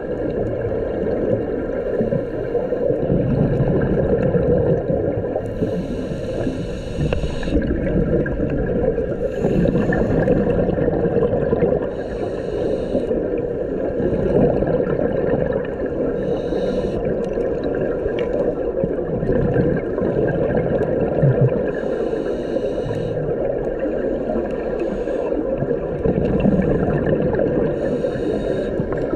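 Underwater sound recorded on a scuba dive: a steady low rumble, with a hissing rush of exhaled bubbles from a diver's regulator every few seconds.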